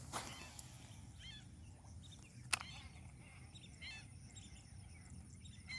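Faint outdoor ambience with scattered short bird chirps, and two sharp clicks, one right at the start and one about two and a half seconds in.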